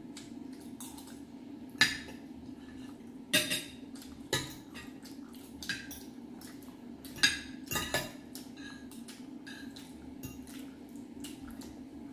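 Metal spoons and forks clinking and scraping against ceramic bowls during a meal: irregular sharp clinks, a few much louder than the rest.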